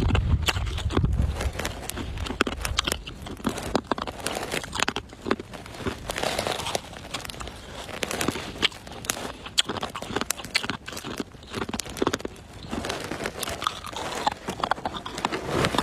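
Ice being bitten and chewed close to the microphone: a steady run of irregular crunches and cracks.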